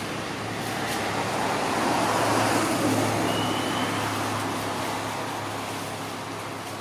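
A motor vehicle passing by: a steady low engine hum under road noise that swells to its loudest about two to three seconds in and then fades away.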